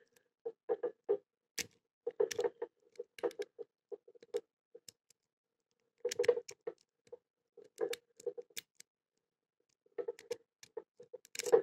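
Deep hook lock pick clicking and scraping against the pin tumblers inside a Blossom pin-tumbler padlock, in irregular clusters of small sharp metallic ticks, each with a faint ring from the padlock.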